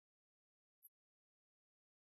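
Near silence, with one faint, very brief high-pitched blip a little under a second in.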